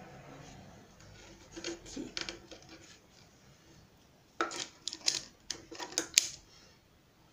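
Crisp rustles and light clicks of cotton fabric being folded and creased by hand: a few soft ones about two seconds in, then a louder cluster from about four and a half to six seconds.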